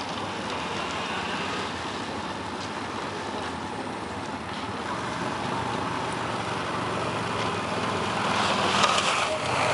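Steady rushing noise of a banana-boat ride on ice: the towing vehicle's engine and the boat sliding over the ice, growing louder in the last couple of seconds.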